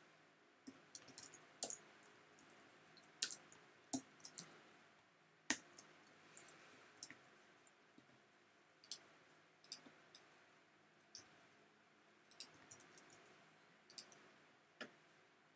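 Faint, irregular clicking of computer keyboard keys and a mouse, with a few sharper clicks standing out.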